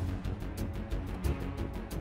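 Background music with deep bass and a quick, regular ticking beat.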